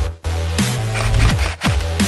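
Electronic dance music with a heavy bass line and falling bass drops about every half second, in a dubstep style.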